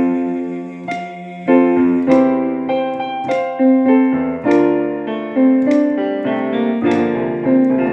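Gospel worship music with no singing: a keyboard playing slow piano-sounding chords. A new chord is struck about every second and rings out.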